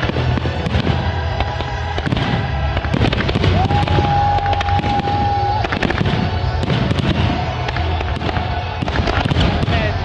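Aerial fireworks display: shells bursting and crackling in quick succession over a steady low rumble, with music playing along. A steady held tone sounds from about three and a half to five and a half seconds in.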